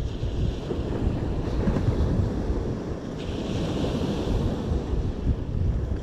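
Wind buffeting the microphone over the wash of surf on the beach, with a brief brighter hiss rising about three seconds in.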